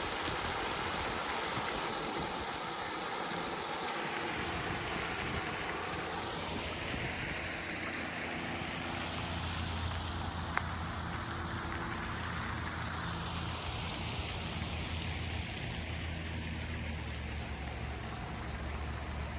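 A steady rushing noise with a low engine drone that comes in about six seconds in and holds, with a sweeping whoosh as the engine passes; a single sharp click about ten seconds in.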